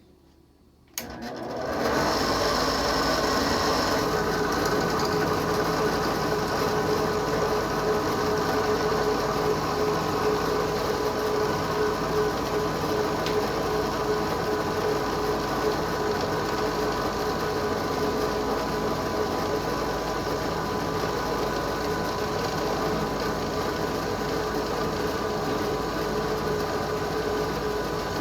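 Drill press switched on about a second in, its motor then running steadily while string holes are drilled in a harp soundboard.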